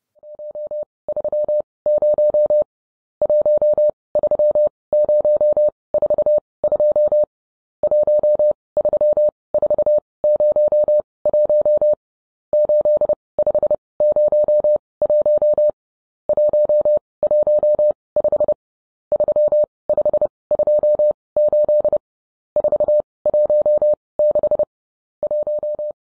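Morse code sent as a single steady mid-pitched beep: short and long beeps in groups, with brief pauses between the groups.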